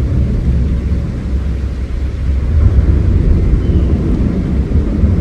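A loud, steady low rumble that wavers slightly, with no distinct calls or knocks.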